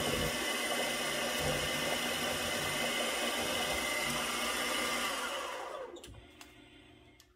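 Milling machine spindle running steadily with a small spot drill in its drill chuck. The sound dies away about six seconds in, leaving a few faint clicks.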